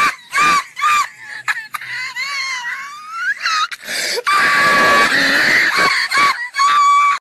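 A high-pitched, shrill squealing voice: a string of short squeals, then a wavering, rising one, then longer held squeals. It cuts off sharply at the end.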